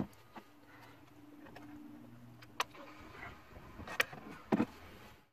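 Scattered sharp plastic clicks and taps from handling an oil jug and a cut-off plastic water bottle used as a funnel while motor oil is poured into an engine's oil filler neck, with the loudest tap about four seconds in. A faint steady low hum runs underneath for the first few seconds.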